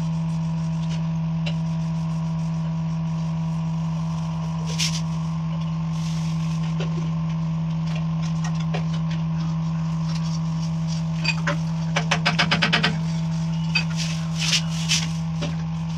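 Light knocks, clicks and scrapes of a CPVC pipe and fitting being handled and pressed into a chase in a brick wall, with a quick run of taps about twelve seconds in. A steady low hum lies under it.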